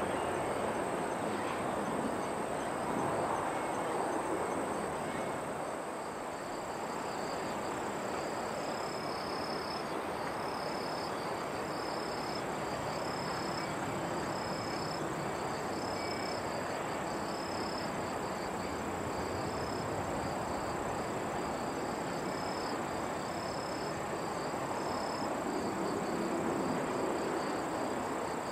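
Insects chirping in short, evenly spaced high pulses about once a second, over a steady background of broad, even noise.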